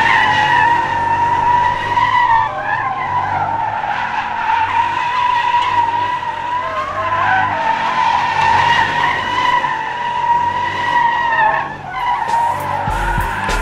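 Tyres of a full-size SUV squealing without a break as it spins donuts, its rear wheels spinning and smoking. The squeal wavers in pitch and drops briefly about twelve seconds in before picking up again.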